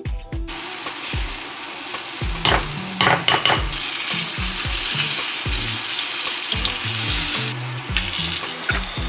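Potato pancake batter frying in oil in a pan: a steady sizzle that starts about half a second in and eases off near the end, with a few sharp clicks of the utensil about three seconds in.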